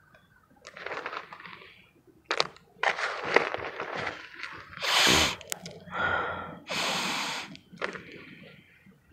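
Mothballs crunching and crackling as fingers squeeze and rub them in a heap of crumbled mothball powder, with many small cracks. About five and seven seconds in come two loud, sharp breaths drawn in close to the microphone, like sniffs.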